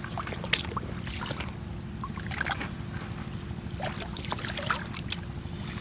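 Shallow seawater trickling and splashing in short irregular spurts over a steady low rumble.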